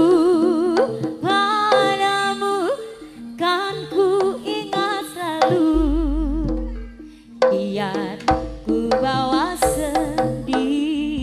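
Live Javanese jaranan music: kendang hand drums beat under a wavering, sliding melody line, with deep bass notes coming in about six and eight seconds in.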